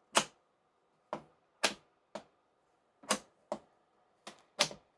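Sharp plastic clicks and snaps, about eight at uneven intervals: 3D-printed PolyTerra PLA Christmas trees being pulled off the Bambu Lab A1's build plate.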